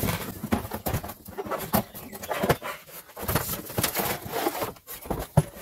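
Cardboard box flaps and crumpled brown packing paper rustling and scraping as a boxed part is handled in the box, in a run of irregular rustles and small knocks.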